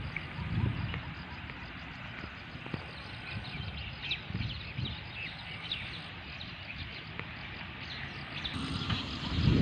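Rural outdoor ambience after rain: many short, high bird chirps over a steady hiss, with occasional low rumbles.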